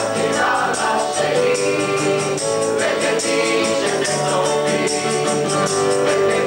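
Mixed choir of men's and women's voices singing, with a quick, steady percussion beat behind them.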